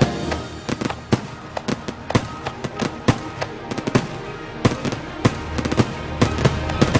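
Firework bursts from a simulated pyrotechnic show: many sharp bangs and crackles, coming irregularly and in clusters, over parade music.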